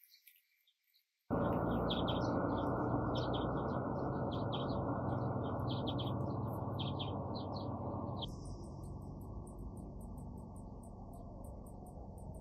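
Small birds chirping over a steady low rushing background that comes in suddenly about a second in. A few seconds before the end the background drops and birds give way to insects chirping in a fast, even pulse.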